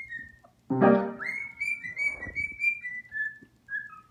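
Cockatiel whistling a string of short, clear notes, some sliding upward, over piano playing. A piano chord struck a little under a second in is the loudest sound.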